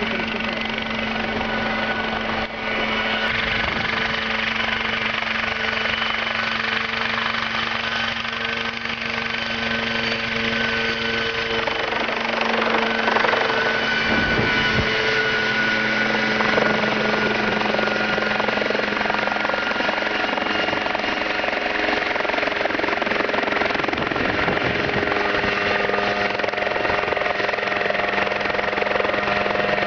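Homemade single-seat helicopter running steadily in flight, its engine and rotor making a continuous drone. Its pitch wavers briefly about halfway through.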